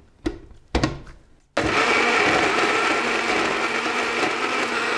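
Plastic blender jar knocked twice as it is pressed onto its base, then the electric blender motor starts suddenly about one and a half seconds in and runs steadily, grinding vinegar-soaked dried red chillies into a paste.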